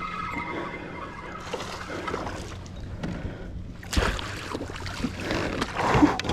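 Water sloshing and splashing around a fishing kayak, with a sharp knock about four seconds in and louder splashing near the end.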